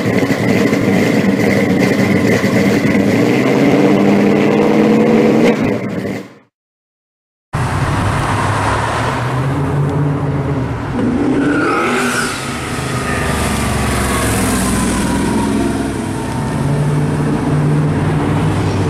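A car engine running, cut off about six seconds in by a second of silence. Then a twin-turbocharged 1955 Chevrolet pro custom drives past on the street, its engine note dropping in pitch as it goes by about twelve seconds in.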